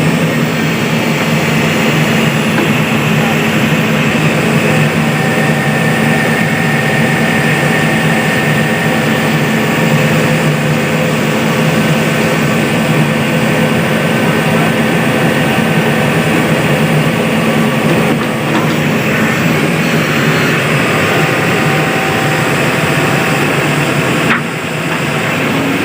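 Heavy diesel engine running loudly and steadily under load, with a faint thin whine coming in for part of the time.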